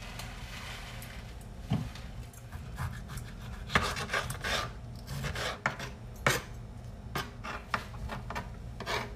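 Kitchen knife slicing and dicing tomato and green onions on a plastic cutting board: irregular taps of the blade against the board.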